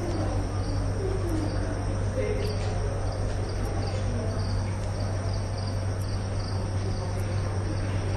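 Steady low background hum with faint high chirps, and faint distant voices near the start.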